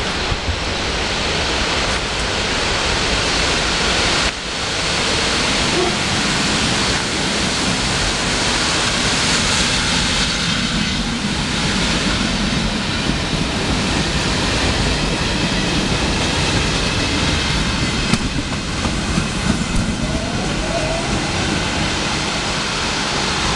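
Passenger train of coaches passing close by on the rails, a loud steady rushing rumble.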